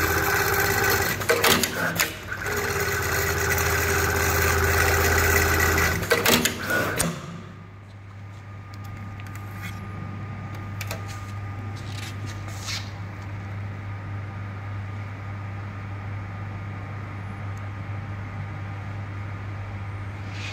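HighTex MLK200-2516 automatic pattern sewing machine stitching at speed for about seven seconds, then stopping abruptly. After it stops, a steady low hum remains, with a few scattered clicks.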